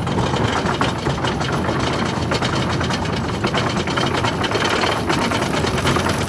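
Lift-hill chain of the Apocalypse wooden roller coaster, clattering rapidly and steadily as it hauls the train up the lift hill.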